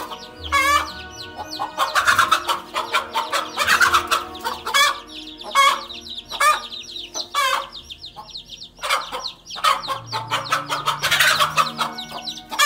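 Mother hen clucking and squawking in alarm as she defends her chicks from a king cobra, with the chicks peeping high and fast throughout.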